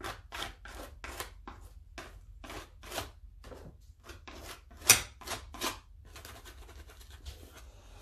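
Quick, repeated scratchy strokes on a journal page, about two to three a second, the sharpest one just before five seconds in. They give way to a softer, steady rustle for the last couple of seconds.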